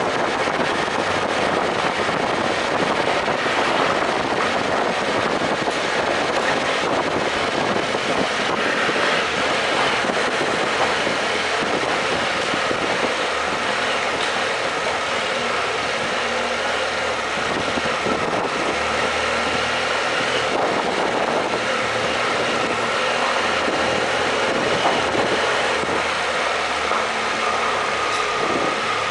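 BMW F800GS motorcycle's parallel-twin engine running at a steady low speed while riding through a rock-cut tunnel on an unpaved road, a continuous even noise with no gear changes or revving heard.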